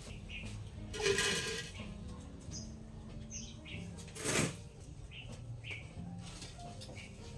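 Small birds chirping now and then, with two brief louder rustling sounds, one about a second in and one at about four seconds.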